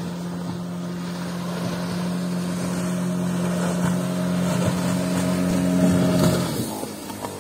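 Outboard motor of a small fibreglass fishing boat running steadily and growing louder as the boat comes in to the beach, then cut off near the end as the boat reaches the shore. Surf washes beneath it.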